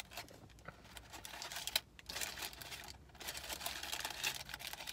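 Paper food wrapper crinkling and rustling as it is handled and unfolded, in irregular bursts with two short pauses.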